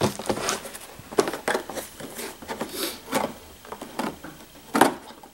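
Cardboard toy box being handled and cut open with scissors: a string of short, irregular scrapes, rustles and snips, the loudest a little before the end.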